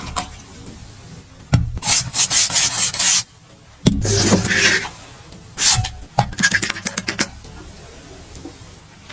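Rubbing and scraping in bursts of about a second or more, then a quick run of clicks a little past the middle.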